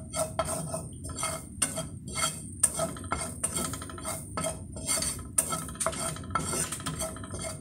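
Wooden spatula scraping and tapping against a nonstick frying pan, stirring minced garlic that is being dry-toasted with no oil, so there is hardly any sizzle. The strokes come evenly, about three a second.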